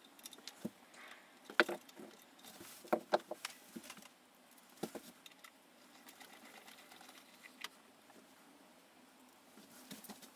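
Scattered sharp clicks and light taps of a small metal strap pin, its screw and a screwdriver being handled while the pin is fitted to an electric guitar's body, the loudest clicks in the first few seconds.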